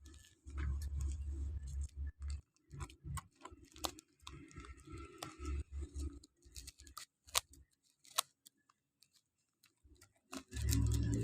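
A parcel being handled and opened by hand: irregular crinkling and rustling of packaging with scattered sharp clicks, two of them strong in the second half, and low bumps of handling.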